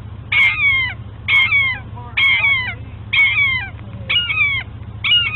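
An animal giving high, squealing calls that slide down in pitch, six in a row at about one a second.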